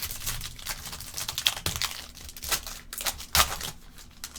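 Crinkling and tearing of a foil trading-card pack wrapper as it is opened and handled, with irregular crackles; the loudest is about three and a half seconds in.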